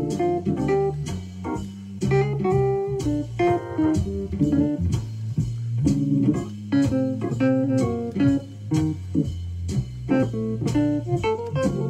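AKAI EWI electronic wind instrument playing a quick, swung jazz solo line over a backing track with a moving bass line.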